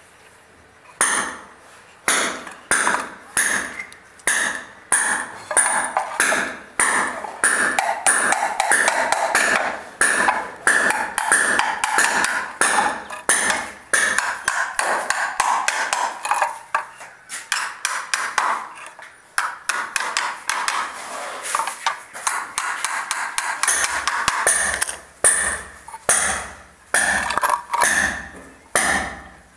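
Small nails being driven into a thin wooden box lid by striking them with a pair of pliers used as a hammer: quick metallic taps with a short ring, about two a second, in runs broken by a couple of brief pauses.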